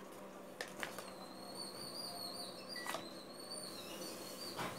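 A high, wavering whistle-like tone that starts about a second in and runs on, with a few light clicks scattered through it.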